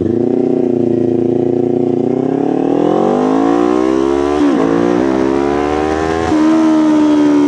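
Kawasaki Ninja 500's parallel-twin engine pulling hard under acceleration: the revs climb steadily, then drop at an upshift about four and a half seconds in and at another about six seconds in.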